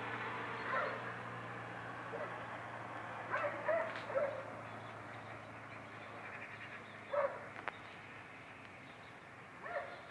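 A dog barking, about six short barks spaced a few seconds apart, over a steady low hum that slowly fades.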